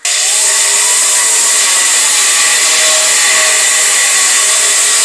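Small pneumatic air grinder running flat out, scoring a cut into steel: a loud, steady, hissing grind that starts suddenly. The grinder is short of power for the job.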